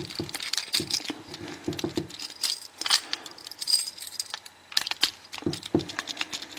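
Metal tension wrench clicking and scraping inside a clear acrylic disc detainer training lock, with irregular clicks and short rattles as the loose discs are turned back into line so the key can be reinserted.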